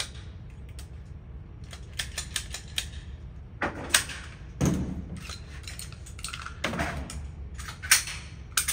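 Irregular sharp metallic clicks and clacks, with louder knocks about four and eight seconds in, typical of firearms and gear being handled at a shooting range.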